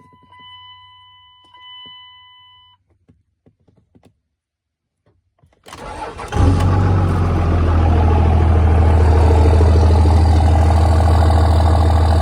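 A steady electronic chime tone sounds for the first few seconds, then a pause. About five and a half seconds in the starter cranks briefly and the 2nd-gen Cummins turbo diesel fires, settling into a loud, steady idle through its newly installed exhaust stack.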